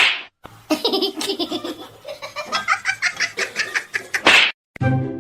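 A person laughing in quick repeated bursts, between two short hissing whooshes. Music starts near the end.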